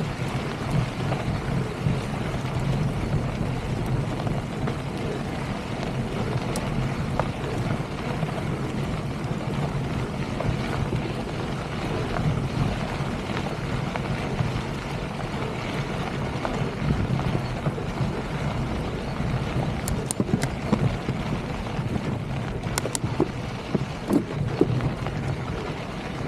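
Wind buffeting the camera's microphone as a mountain bike rolls over loose desert gravel, a steady rumbling rush with a few sharp clicks and rattles near the end.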